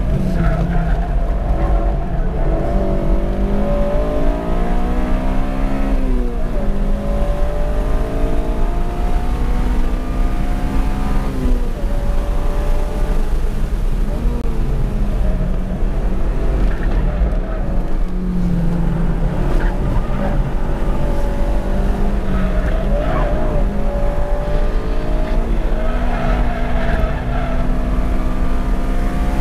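Honda Civic Si's K20Z3 four-cylinder engine heard from inside the cabin while being driven hard on a race track, revs climbing and then dropping back several times with the gear changes, over a constant low road and wind rumble.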